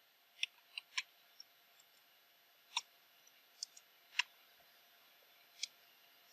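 Computer keyboard keys being typed, single irregular clicks with pauses between them, about eight or nine keystrokes in all.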